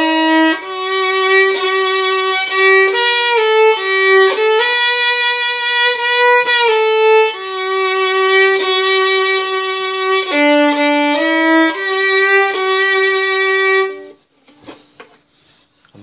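Solo violin bowed slowly by a beginner, a simple melody of held notes about a second long each, stopping about 14 seconds in. Faint knocks of handling follow.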